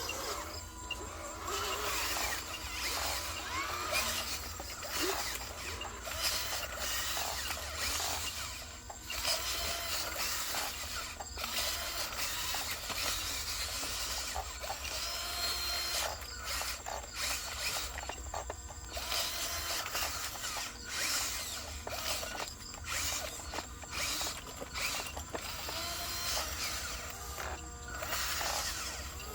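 Radio-controlled model trucks running, their small electric motors and gearboxes whirring and ratcheting, the sound starting and stopping in short spurts.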